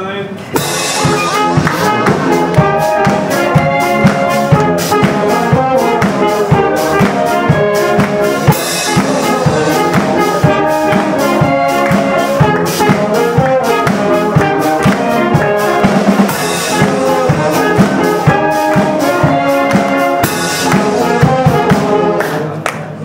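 Live brass band playing an up-tempo dance tune: trumpets and trombones over a drum kit beat. The music dips briefly just before the end.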